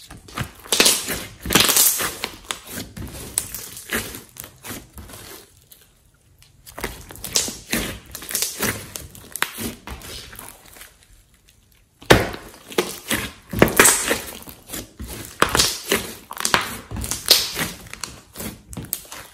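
Hands squishing, folding and stretching a large batch of glossy slime mixed with clay, giving runs of wet, sticky clicks and pops. The sound comes in three stretches, with short pauses about 6 and 11 seconds in.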